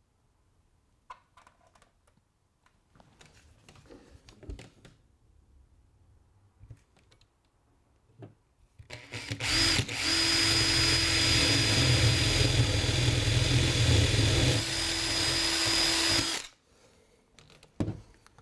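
Makita 18V cordless drill boring a 10 mm hole through the cork-topped wooden baseboard. After a few faint handling taps, the drill runs at a steady speed with a high whine for about seven seconds, then stops suddenly.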